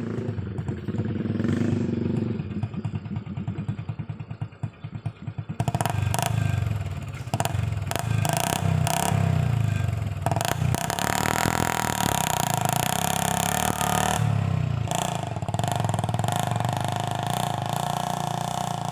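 Honda Revo 110 cc single-cylinder motorcycle engine driving a homemade mini truck, labouring under a load of palm fruit. Loud rattling and clattering joins about six seconds in and continues.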